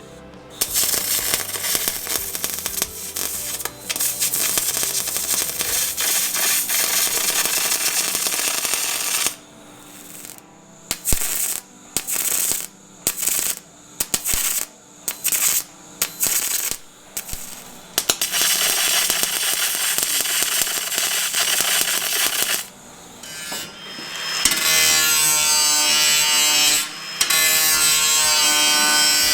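Sheet-metal repair work on steel body panels: a stretch of steady hissing noise, then about a dozen short bursts in quick succession typical of MIG tack welds, then steady noise again. Near the end a small electric tool's motor whines at a steady pitch.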